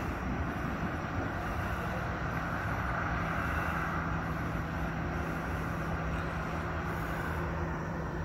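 A car's engine running at a steady pitch as it approaches, over road and traffic noise; the engine note comes in about three seconds in.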